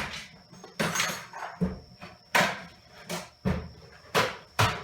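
Irregular knocks and clatter of metal being handled and tapped while working on a hot-water circulator pump on a workbench, about eight sharp knocks at uneven spacing, as the unwanted check valve is worked out of the pump's end.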